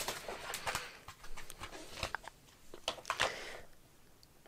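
Clear plastic CD jewel case being handled and opened, with a series of small clicks and plastic rustling that die away after about three and a half seconds.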